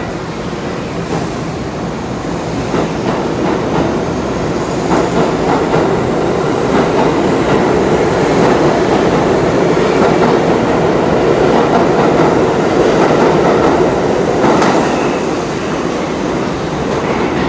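New York City Subway train of R62A cars pulling out past the platform, steel wheels clattering over the rail joints under a steady rumble. The rumble builds as the cars pass close, then eases near the end as the last car goes by.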